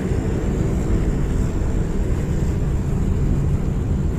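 Four-engine turboprop transport plane in flight: a steady low drone of its engines, without a break.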